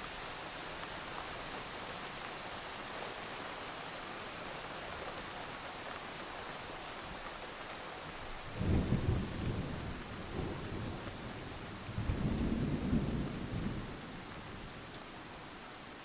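Steady rain hissing, with two rolls of thunder rumbling low over it about halfway through and again a few seconds later.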